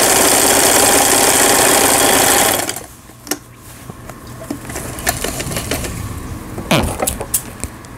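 Lion Line 17 (Janome-built) household sewing machine running fast, stitching stretchy fabric to test its newly replaced gearbox; it stops suddenly a little under three seconds in. After that come a few quieter clicks and knocks as the cloth is handled.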